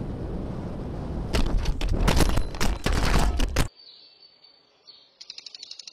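Loud rushing wind-and-road noise with a quick run of sharp bangs or clatter for about two seconds, cutting off suddenly. About five seconds in, an impact lawn sprinkler starts up, ticking rapidly and evenly.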